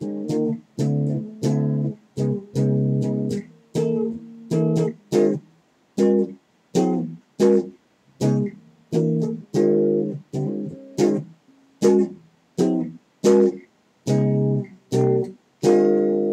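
Guitar played solo: chords strummed one at a time, each struck sharply and fading quickly, about one to two a second with short gaps between.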